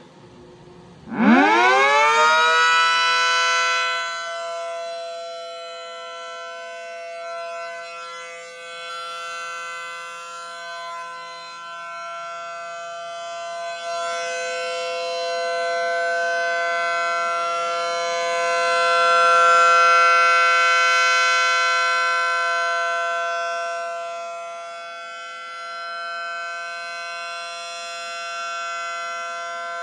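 3D-printed replica of an ACA Allertor 125 siren winding up in about a second to full pitch, then holding a steady chord. Its loudness rises and falls slowly.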